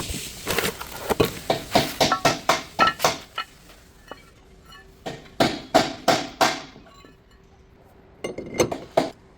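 Hammer blows on metal during brake work, struck about three times a second in three runs with pauses between, each blow ringing briefly.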